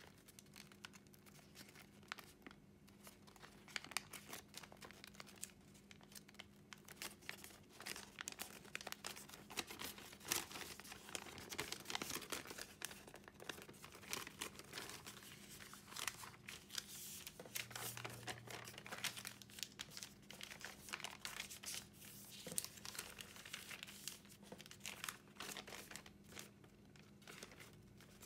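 A sheet of origami paper being folded and creased by hand: irregular crinkling and rustling with many small crackles as the paper is pressed and shaped.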